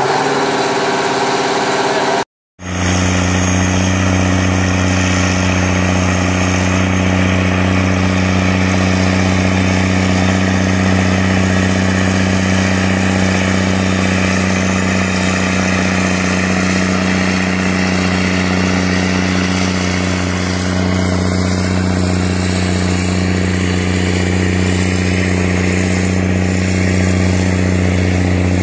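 Big Bud four-wheel-drive tractor's large diesel engine running hard, a steady, deep drone. It cuts out for a moment about two seconds in, then resumes unchanged while the tractor pulls a wide multi-furrow plough.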